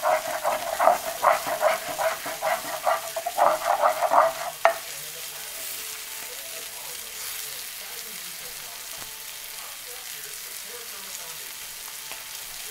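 A plastic spatula scraping quickly back and forth across a nonstick frying pan, about two or three strokes a second, ending in a sharp tap about four and a half seconds in. After that the chicken frying in butter sizzles softly and steadily.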